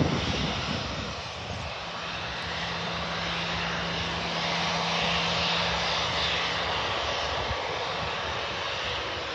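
Jet airliner's engines running steadily as it taxis, a continuous rushing hiss with a low steady hum for a few seconds in the middle. Wind rumbles on the microphone at the start and fades within the first second or so.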